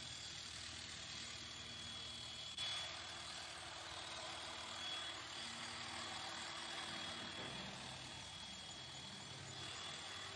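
A machine's engine running steadily, an even noisy drone with a thin high whine. The sound jumps a little louder about two and a half seconds in.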